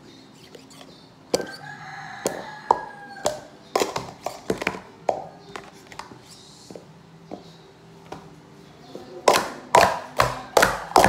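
Plastic sport stacking cups clacking against each other and the stacking mat as they are stacked up and down in quick succession, ending in a fast burst of clatter near the end. A drawn-out call sounds in the background from about one to three seconds in.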